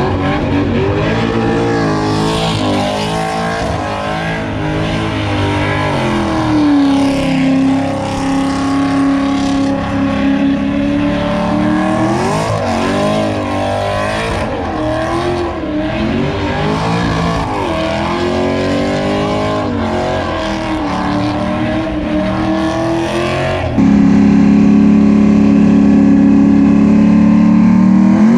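Car engine held at high revs during a smoky burnout and donuts, its pitch swinging up and down with the throttle and holding steady for a few seconds at a time. About 24 s in the sound turns abruptly louder and closer, the engine held at a steady high rev.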